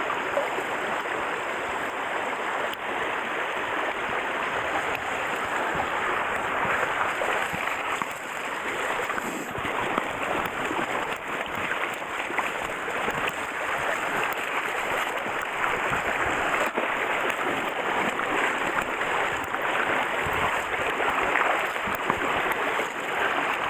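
Shallow stream water rushing steadily close by, with a few faint knocks.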